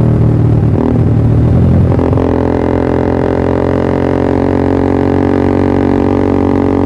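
Yamaha R15 V3's single-cylinder engine running through a Pro Liner aftermarket exhaust: the note rises and falls in the first two seconds, then settles into a steady idle drone.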